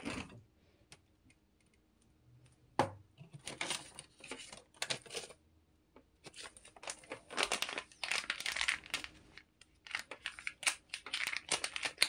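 Irregular dry rustling and crinkling, coming in short bursts, with one sharp knock about three seconds in.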